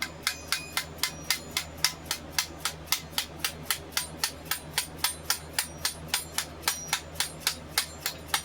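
Steady, rapid light hammer taps, about four a second, each with a bright metallic ring, knocking a nodachi's handle (tsuka) loose from the blade's tang.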